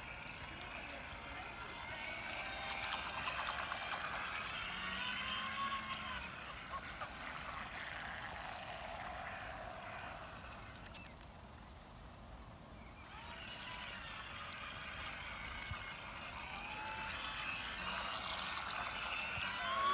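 Radio-controlled model boat's small motor whining, its pitch rising and falling as the throttle changes. It fades about halfway through while the boat is far out, then grows louder again near the end as the boat runs close, with water splashing at its hull.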